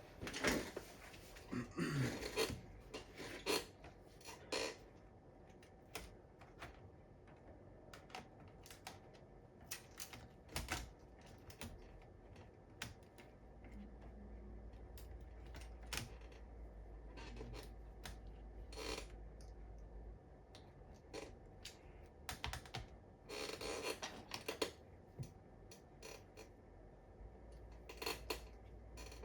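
Scattered clicks, taps and short scrapes of plastic and metal laptop parts being handled as a laptop motherboard is fitted back into its case, busiest at the start and again near the end, with a low hum for several seconds in the middle.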